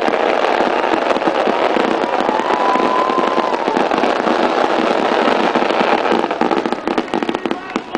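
Fireworks going off in a dense, rapid stream of crackles and bangs, with a brief whistle about three seconds in; near the end the barrage thins to more separate bangs.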